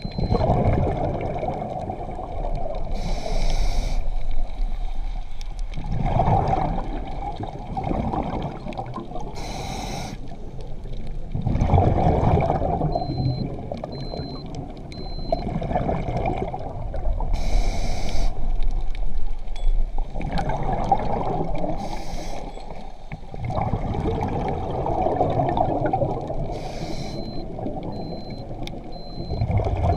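Heavy underwater surge heard from below the surface: water churning and rushing in slow swells that rise and fall every few seconds, with a short hissing burst every five to seven seconds. Faint runs of high beeps come in a few times.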